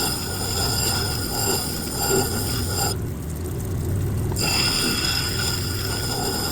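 Kingsley North 6-inch cabbing machine running, polishing a malachite face on its wheel: a steady low motor hum under a high grinding whine. About three seconds in the high whine cuts out for a second and a half and then returns, while the hum goes on.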